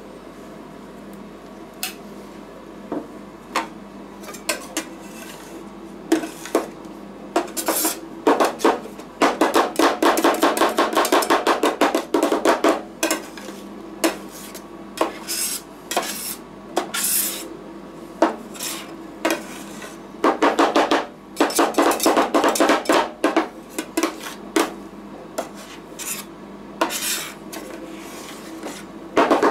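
Two steel spatulas chopping and scraping ice cream mixture on the frozen stainless-steel plate of a rolled-ice-cream machine as it sets. Scattered taps come first, then fast runs of metallic clacking about a third of the way in and again about two-thirds through.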